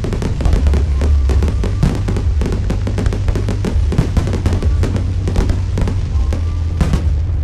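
Fireworks going off in quick succession: a dense run of sharp pops and crackles with no break, over music with a heavy, steady bass.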